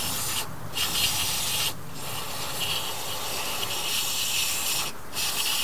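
Aerosol carb cleaner hissing out through its straw nozzle as it is sprayed into the oil screen to flush out the gunk. It comes in long bursts with brief breaks about half a second, two seconds and five seconds in.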